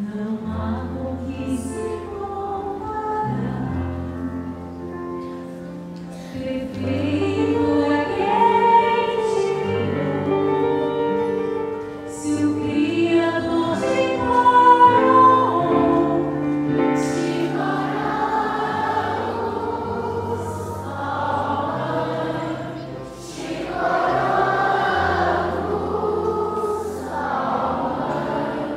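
Choir and a woman singing a Marian hymn with instrumental accompaniment over held bass notes that change every couple of seconds.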